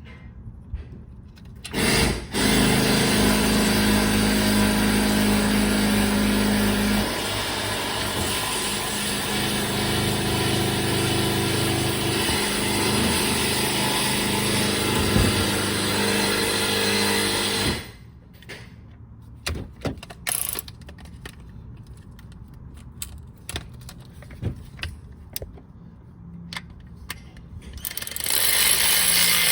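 A small power tool's motor runs steadily for about sixteen seconds, then stops, and it starts up again near the end. Between the runs come scattered light clicks and knocks of hand work on metal parts.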